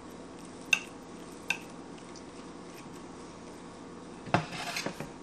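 A knife slicing through a meatloaf and clicking against the plate beneath: two light taps in the first second and a half, then a louder clink with a short clatter about four seconds in.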